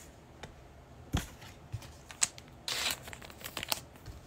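Foil trading-card pack wrapper being handled and torn: a few sharp taps and clicks, and a short crinkling tear a little under three seconds in.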